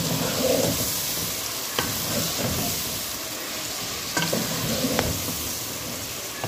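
Sliced onions sizzling in hot oil in a pressure cooker over high heat, stirred with a wooden spoon that knocks against the pot a few times.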